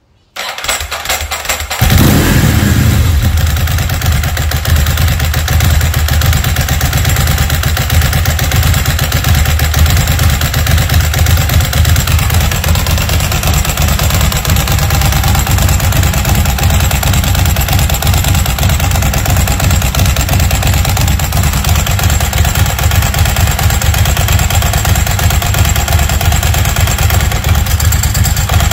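2003 Ducati 999S's 998 cc Testastretta L-twin turning over on the starter and catching about two seconds in, then idling steadily with a fast clatter. The dry clutch is spinning with its cover off, on a new billet pressure plate.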